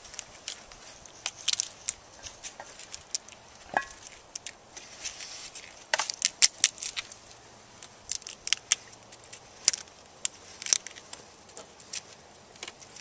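Cooked crab being cleaned by hand over a paper bag: irregular sharp clicks and crackles as the shell and gills are pulled and picked away, mixed with paper rustling.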